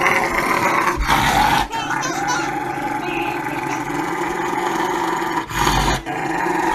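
Rottweiler vocalizing in long, drawn-out protest while its nails are clipped, broken by short pauses about a second in and a longer one near the end.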